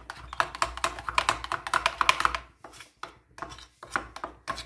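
A fork clicking rapidly against a ceramic dish as raw eggs are beaten with spices for an omelette. There is a fast run of taps in the first half, then sparser clicks.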